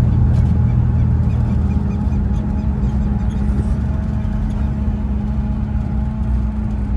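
Steady engine and road drone heard inside a car cruising on the highway.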